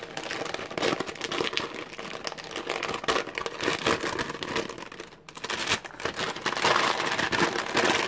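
Paper envelope being opened and handled by hand, the paper crinkling and rustling almost without a break, with a brief pause about five seconds in.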